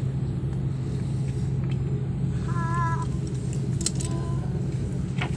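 Steady airliner cabin noise: the even drone of the engines and airflow. About halfway through, a short high wavering voice sound briefly rises above it.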